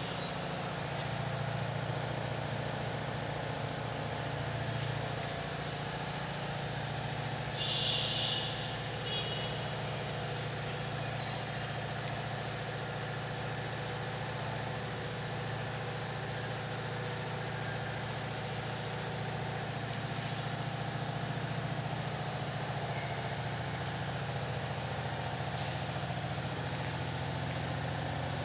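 A steady low engine hum that runs unchanged throughout, with a brief high chirp about eight seconds in.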